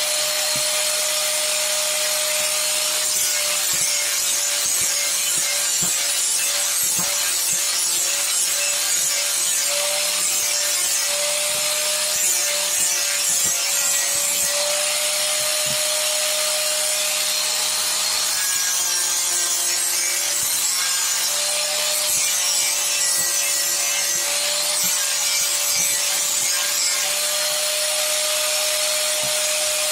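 Electric angle grinder running steadily against wood: a held motor whine over a dense grinding hiss as the disc shapes the carving.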